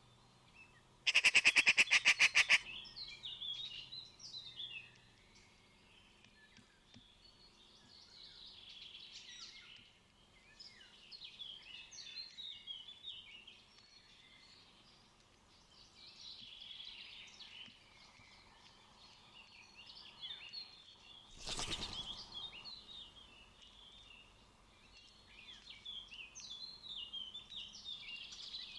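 A magpie's harsh rattling chatter, a fast run of loud clicks lasting about a second and a half, just after the start, then a shorter harsh burst about two-thirds of the way in. Other birds chirp high and busily all through.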